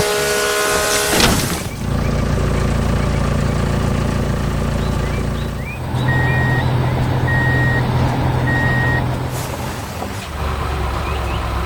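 Heavy truck engine running, with a loud hiss in the first second and a half, then three reversing beeps about a second apart, about six seconds in.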